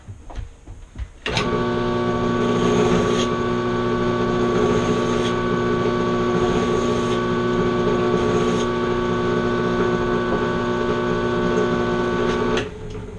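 An electric shop machine's motor starts about a second in, runs steadily and evenly with a constant pitch, and cuts off near the end.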